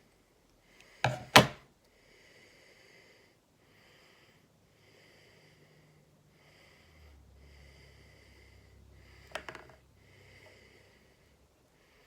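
Handling at a fly-tying vise: two sharp clicks about a second in and another cluster near the end. Between them comes a soft rasp that repeats about once a second.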